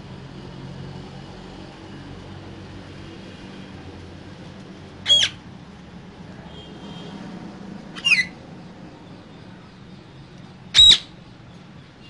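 Caged parakeet giving three short, loud squawks about three seconds apart, the last one the loudest.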